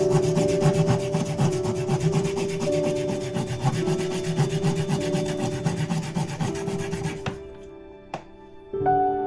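Hand saw cutting through wood in steady rasping strokes, under soft sustained music; the sawing stops abruptly about seven seconds in, leaving the music and a single knock.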